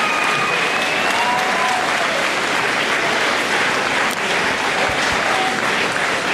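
A large audience applauding steadily, with a few voices faintly audible over the clapping in the first couple of seconds.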